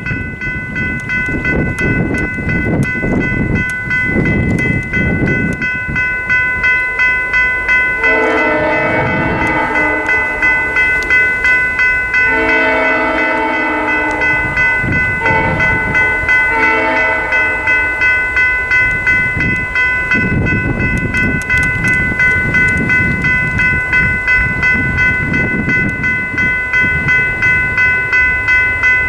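Railroad crossing bell ringing steadily with a rapid repeated ding while the crossing signals are active. From about eight seconds in to about seventeen seconds, an approaching locomotive sounds a series of horn blasts for the crossing, over a low rumble.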